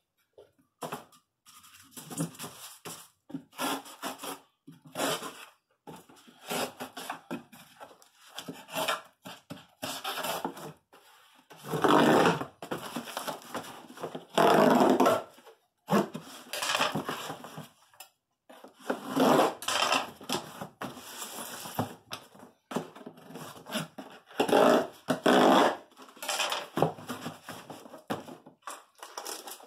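Cardboard box being packed and closed, with the flaps scraping and rustling and styrofoam packing rubbing against the cardboard, in a string of irregular short bursts. The loudest come in the middle and latter part.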